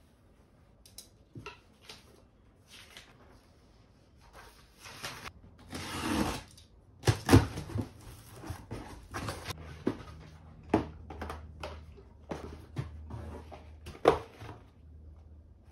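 Cardboard box being opened and unpacked by hand: flaps and packaging rustling, with a longer scraping rustle about six seconds in and a sharp knock about a second later, then scattered knocks as items are lifted out and set down.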